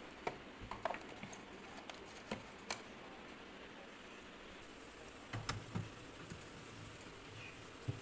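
Light clicks and knocks of plastic jars and containers being set into a refrigerator's clear plastic door bins and onto its shelves. A few scattered taps come first, then a small cluster of knocks a little past halfway and one more near the end.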